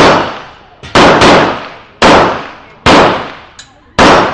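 Rapid competition gunfire: six shots at roughly one-second intervals, with two fired close together about a second in, each followed by a long echoing decay.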